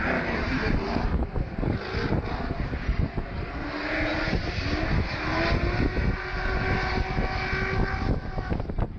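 Car engine accelerating, its pitch rising slowly for about four seconds from the middle onward, over a constant low rumble.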